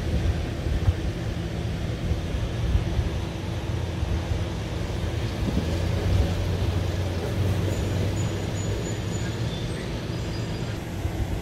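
A steady low hum and rumble from a running motor or engine.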